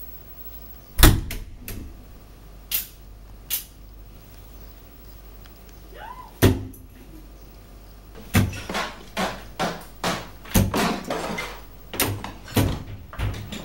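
A wooden interior door shutting with a bang about a second in, followed by a few lighter knocks and another heavy thud past the middle. From about two-thirds of the way through, a fast, irregular run of bangs and thuds.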